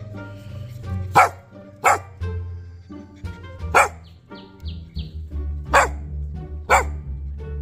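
A young dog barking five times, sharp single barks at uneven gaps, over background music.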